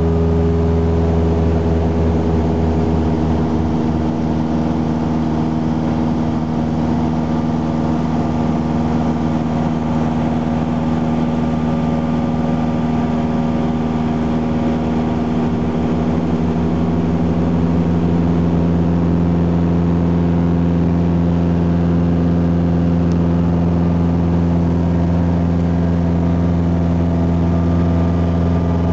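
Cessna 172SP's four-cylinder Lycoming engine and propeller droning steadily in flight, heard from inside the cabin. The engine note shifts slightly about sixteen seconds in.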